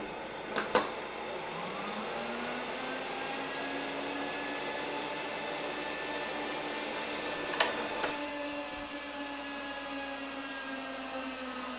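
Bridgeport milling machine running, its half-inch two-flute end mill cutting a keyway along an oiled shaft as the table feeds. A machine whine rises in pitch about a second and a half in and then holds steady. A couple of sharp clicks come about a second in and again past the halfway mark.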